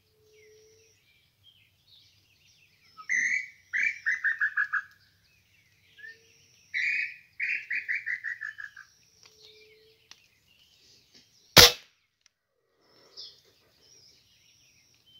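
Two falling, quickening series of whistled notes, the call of the tataupa tinamou (nambu pé-roxo), with small bird chirps around them. A little past the middle comes a single loud gunshot.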